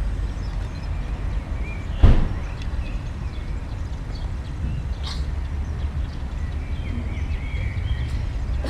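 A steady low outdoor rumble, with birds chirping now and then. A single sharp knock comes about two seconds in.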